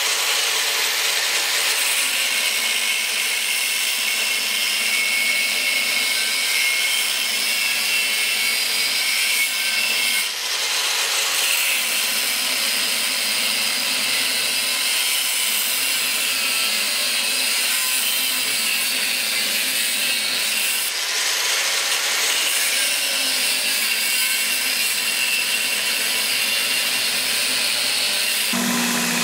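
A power tool grinding or cutting, probably on the metal pommel: a steady, harsh hiss that starts suddenly and runs on without a break.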